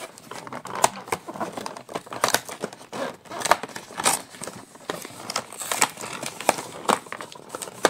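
Cardboard advent calendar door being pried and torn open along its perforation: rustling and crinkling card with many irregular sharp cracks and snaps.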